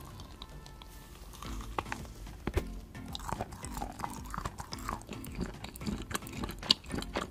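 Person biting into and chewing a whole shiitake mushroom, with irregular crunchy clicks throughout.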